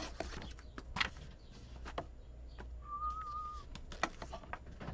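Scattered clicks, taps and rustles of objects being handled on a desk, the sharpest about a second in and again about four seconds in. A short, wavering whistle-like tone sounds for under a second about three seconds in.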